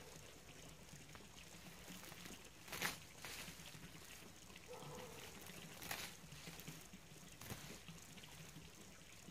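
Faint rustling of dead leaves and old plant stalks as they are pulled by hand out of a garden bed, with a few sharp cracks, the loudest about three seconds in.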